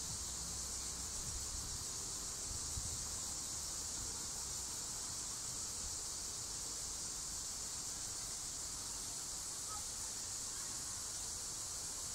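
Steady, high-pitched insect chorus shrilling without a break.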